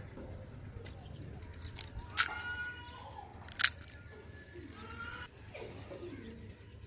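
Crisp cracks of fried golgappa (pani puri) shells being broken open at the top with a thumb, two or three sharp snaps spread over a couple of seconds.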